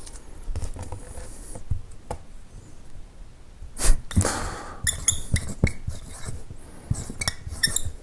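Dry-erase marker writing on a whiteboard: a sharp knock about four seconds in, then a run of short, squeaky, scratching strokes as a word is written.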